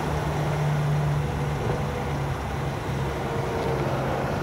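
A motor vehicle's engine running with a steady low hum, its pitch dropping slightly about a second and a half in.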